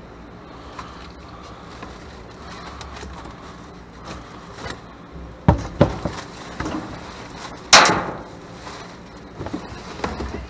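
Two or three sharp knocks about five and a half seconds in, then one loud bang about two seconds later that dies away over about half a second, with a few lighter clicks near the end, over a steady low rumble.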